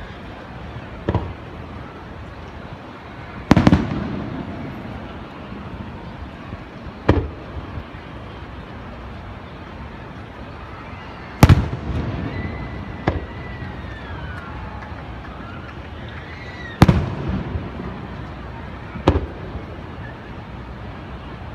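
Distant aerial firework shells bursting: about seven sharp bangs a few seconds apart, each trailing off in an echo.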